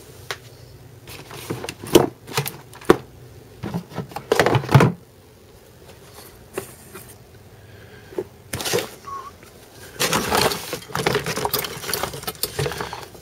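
Hands rummaging through objects on shelves: scattered knocks and clicks at first, then a longer stretch of rustling and rattling near the end.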